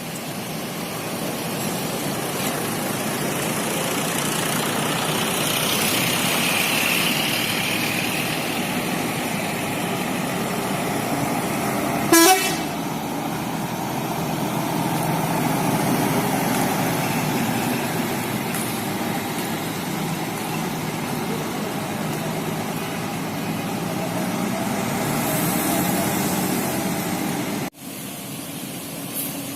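Indonesian intercity bus 'telolet' multi-tone horn playing a long tune over running bus engines. A short sharp click about twelve seconds in.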